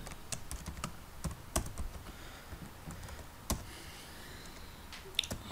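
Typing on a computer keyboard: irregular keystroke clicks, most of them in the first two seconds, then a few scattered ones.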